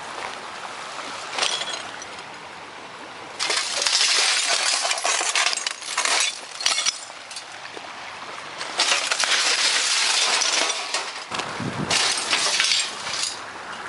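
Broken CRT glass shards crunching and clinking in several stretches of a second or two, with a dull thump a little before the end.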